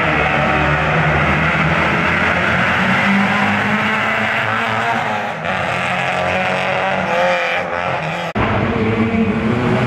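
Rally car engine running hard on a stage, its pitch rising and falling as it revs through the gears. The sound breaks off abruptly near the end and resumes at once.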